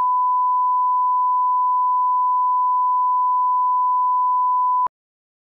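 Television line-up test tone played with colour bars: a single steady pure pitch that cuts off abruptly near the end.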